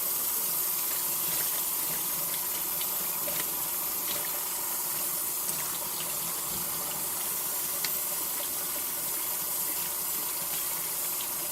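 Kitchen sink tap running steadily into the sink as bowls are rinsed under it, with a few faint ticks.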